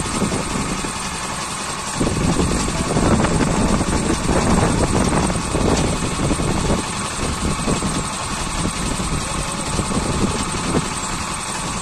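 Small engine of a wheeled concrete-pipe cutting machine running steadily, getting louder about two seconds in.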